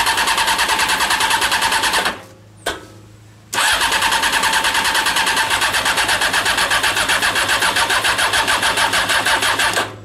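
Honda CBR600 inline-four motorcycle engine cranking on its electric starter without catching, in two bouts, a short one and then a longer one of about six seconds, with an even rapid pulse of compression strokes. The fuel pump's hose is off to check whether it delivers fuel, and the pump, which the builder suspects, is not pumping.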